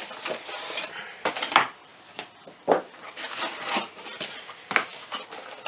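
Cardboard box being opened by hand: card rubbing and scraping as the outer sleeve slides off and the lid is lifted, with a few sharp knocks of the box being handled.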